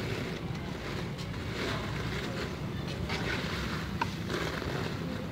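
Wire spider strainer stirring and scooping cimol (tapioca balls) in frying oil in an aluminium pot, with a steady rushing noise underneath. One sharp metallic tap about four seconds in, the strainer knocking the pot.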